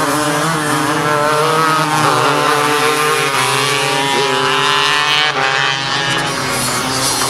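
Racing karts' two-stroke engines running at high revs as the karts pass, several engine notes overlapping, their pitch rising and falling as they go through the corners.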